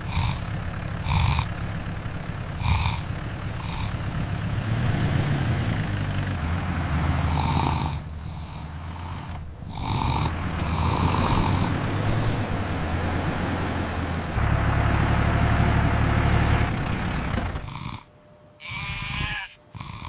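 A tractor engine sound effect running with a steady low rumble, broken by several abrupt cuts. Short higher-pitched sounds come over it every second or two in the first half, and a brief wavering pitched sound comes near the end.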